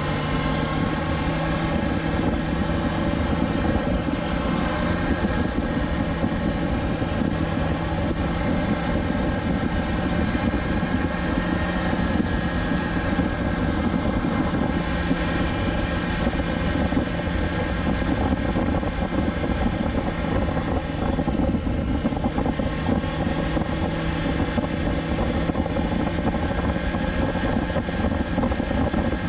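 BMW S1000XR's inline-four engine running at steady revs while the motorcycle cruises, its note holding nearly level throughout.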